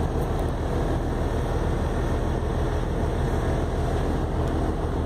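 Motorboat engine running steadily, a low, even drone.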